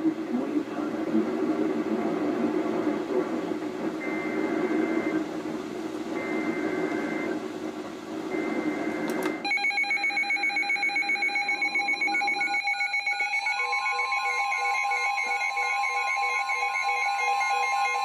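Weather alert radios tuned to a National Weather Service broadcast: a noisy, hissing signal carries three short bursts of warbling SAME alert data, each about a second long. About nine seconds in, several weather radios go off together, beeping and chirping at different pitches. A steady alert tone joins about four seconds later.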